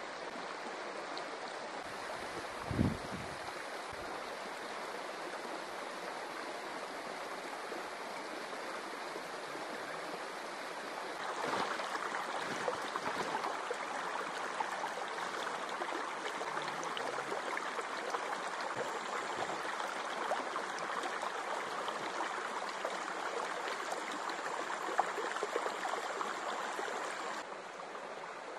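A river flowing, a steady rush of water that steps up louder about eleven seconds in and drops back near the end. A brief low thump about three seconds in.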